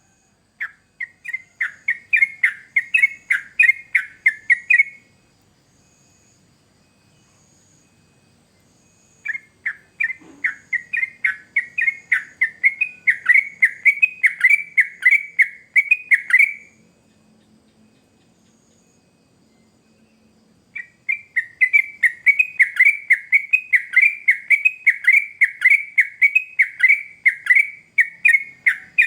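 Yellow-vented bulbul (trucukan) singing in three long bouts of rapid, repeated falling notes, about three to four a second, with pauses of several seconds between the bouts.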